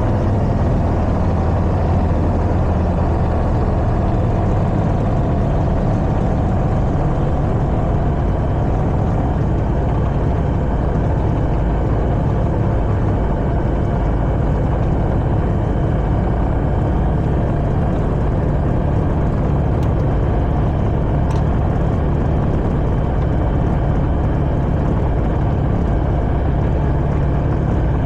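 Steady drone of a JMB VL3 Evolution's piston engine and propeller, heard from inside the cockpit in level flight.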